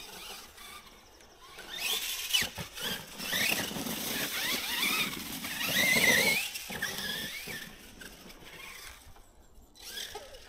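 Losi LMT Grave Digger 1/10 RC monster truck's electric motor and drivetrain giving a high-pitched whine that rises and falls in pitch as the throttle is worked. It starts about two seconds in, is loudest about six seconds in, and dies away after about seven and a half seconds.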